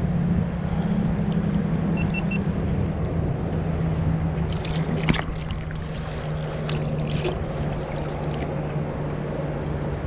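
River current rushing steadily, the river high with spring runoff, with a few brief sharp sounds around the middle.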